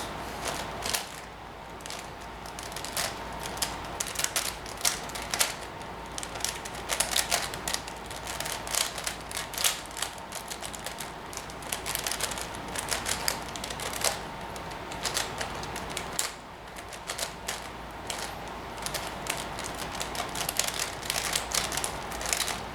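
Plastic layers of a 5x5 Rubik's Professor cube being turned quickly by hand: a rapid, irregular run of sharp clicks and clacks. It is a cube that keeps locking up during turns.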